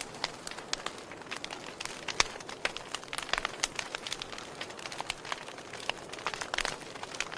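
Fire crackling: a steady hiss with many sharp, irregular pops and snaps, the loudest about two seconds in.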